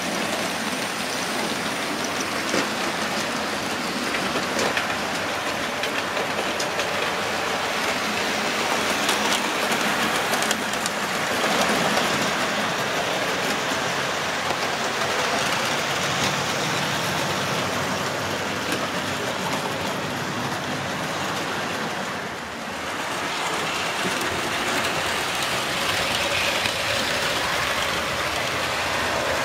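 Model railway trains running on the layout's track: a steady hiss of locomotive motors and wheels on rails, with occasional light clicks.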